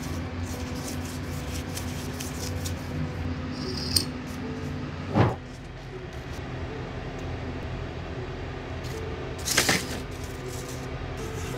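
Handling noises on a workbench while two-part epoxy is measured out onto a card on a digital scale: a loud low thump about five seconds in and a quick cluster of clicks and paper rustle near ten seconds, over faint background piano music.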